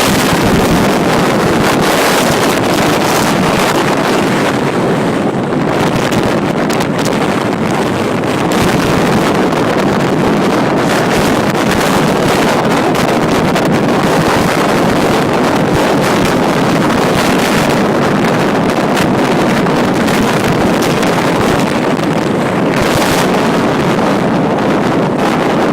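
Strong wind blowing hard, a loud steady rush with constant buffeting on the microphone.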